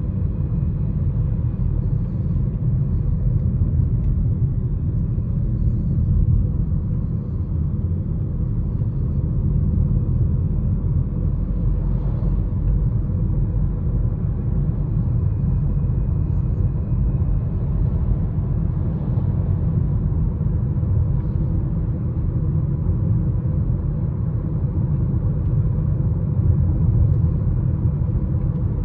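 Steady low road and engine rumble inside a 2019 Mazda CX-5's cabin while driving, with a faint, thin, high-pitched whistle running over it: the 'dog whistle' noise the owner is recording. The whistle fades for a while in the middle, then returns.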